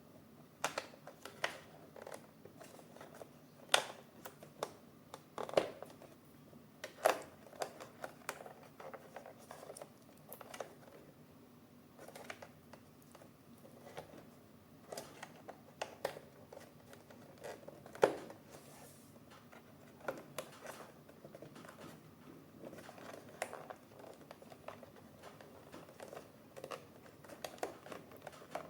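Irregular clicks, taps and light crinkling from hands handling Bambu Lab A1 3D printer parts and packaging during assembly. There are a few sharper knocks among them, the loudest at about 7 s and about 18 s.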